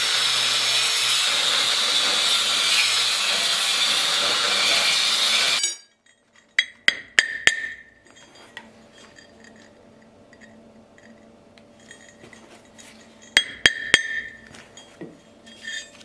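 Angle grinder grinding steel, a steady loud noise that cuts off abruptly after about five and a half seconds. Then two clusters of sharp, ringing metallic clinks as steel fittings and rings are handled on an anvil.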